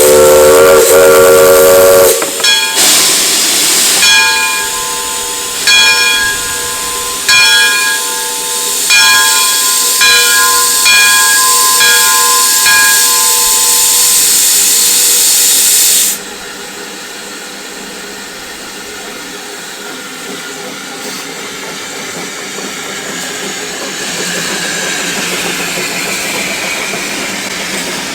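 Narrow-gauge steam locomotive blowing its whistle for about two seconds, then letting off steam in a loud hiss while its bell rings about every second and a half. The hiss cuts off suddenly a little past halfway, leaving a quieter steady rumble.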